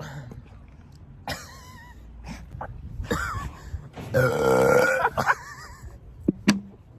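A young woman burping: a long, deep belch about four seconds in, lasting about a second, with shorter throaty sounds before it.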